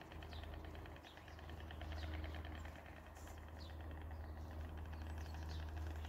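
A vehicle engine idling steadily: a low hum with a fast, even pulse. Over it a small bird gives short, falling high chirps several times.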